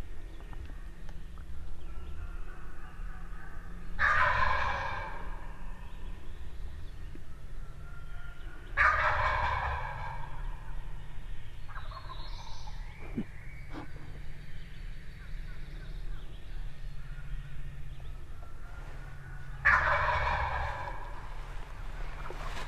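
Wild turkey gobbler gobbling three times, each gobble a rattling call about a second long, coming about four seconds in, about nine seconds in and near the end.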